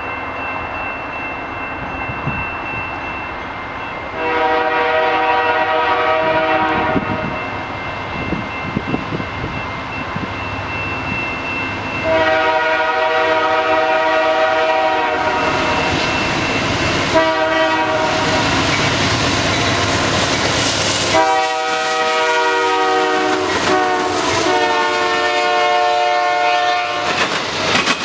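Air horn of a freight train led by two GE AC44CW locomotives, sounding a series of blasts as it approaches: two long, one short, then a long final blast, in the usual grade-crossing pattern. Near the end the train reaches the camera and the wagons rumble and clatter past.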